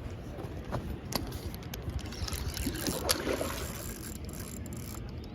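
River water sloshing and splashing as a hooked carp is worked in close to the bank, with a few sharp clicks, about a second in and again about three seconds in.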